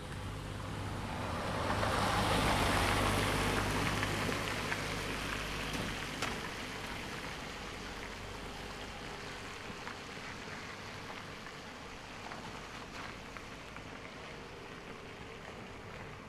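A car passing by: the hiss of its tyres swells over the first two seconds and then slowly fades away.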